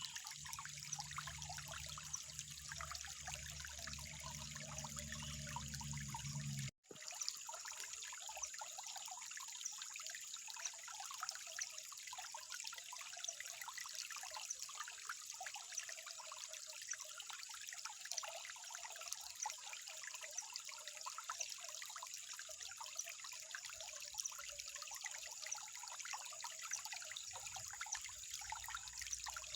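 Water trickling steadily, a busy, even splashing with no pauses. It cuts out completely for an instant about seven seconds in, and a low hum under the water stops at the same point.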